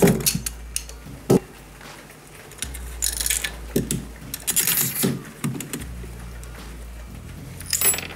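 Heated bolt being knocked into the tripod's plastic mount: a few sharp knocks at uneven spacing, with short bursts of clattering, scraping metal between them.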